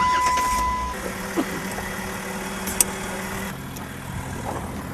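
Jeep engine idling steadily, its note dropping a little about three and a half seconds in, with a steady beep lasting about a second at the start and a single click near the middle.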